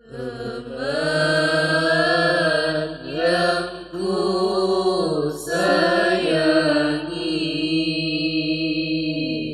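A group of students singing a syair (sung Arabic-style poem) together in long, wavering melodic phrases. The singing starts suddenly, with brief breaths about three seconds in and again past five seconds.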